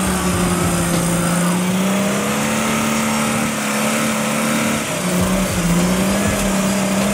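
Off-road buggy engine running under load, its pitch stepping up, dipping about two-thirds of the way through, then climbing again as the throttle is worked.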